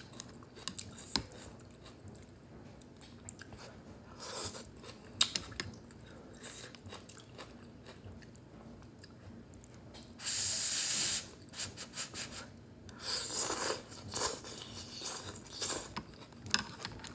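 Someone eating udon noodles close to the microphone: chewing and small wet mouth clicks, with two louder, longer stretches of noise, the first about ten seconds in lasting about a second and the second a few seconds later.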